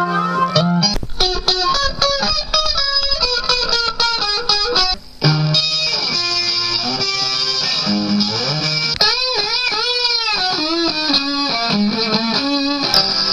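Solo guitar playing a quick melody of plucked single notes. It breaks off briefly about five seconds in, and around nine to ten seconds in several notes are bent up and let back down.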